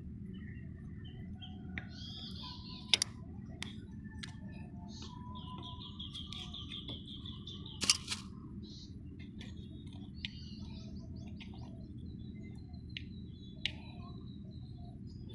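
Birds chirping over a steady low background rumble, with a few sharp clicks scattered through it.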